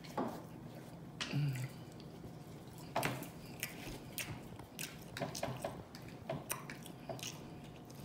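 Close-miked mouth sounds of eating turkey breast: chewing with wet lip smacks and many short, sharp mouth clicks.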